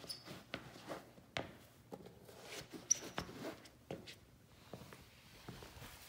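Rubber-soled leather sneakers shuffling and stepping on a smooth concrete floor: irregular soft footfalls and scuffs, with a couple of short high squeaks of the soles, one right at the start and one about three seconds in.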